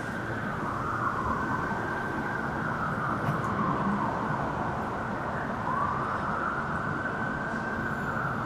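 Emergency vehicle siren in a slow wail, its pitch sliding up and down over several seconds, over a steady rumble of city traffic.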